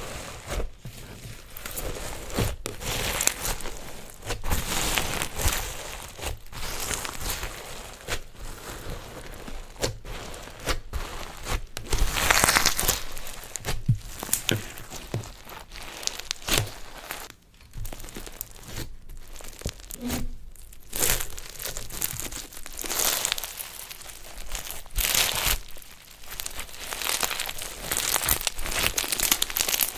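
Slime being worked by hand with crunchy things mixed in, giving an irregular run of crinkling and crunching crackles. The crackling is loudest about twelve seconds in.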